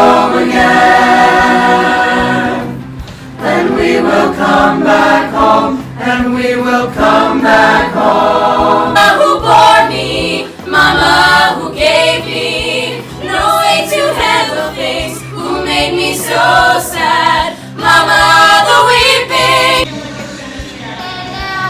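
A group of voices singing a song together, in phrases with brief breaks between them.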